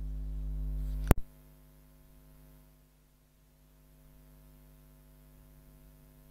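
Steady electrical mains hum from the recording setup, with a single sharp click about a second in, after which the hum drops and stays faint.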